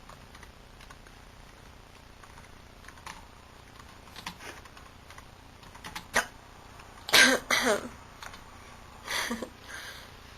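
A woman hiccuping: a few faint hiccups early on, then a loud cluster of two or three quick, rough hiccups about seven seconds in and another near nine seconds.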